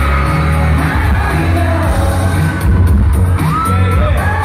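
A K-pop group singing live over a pop backing track through a concert hall's PA, with a steady heavy beat and shouts from the crowd.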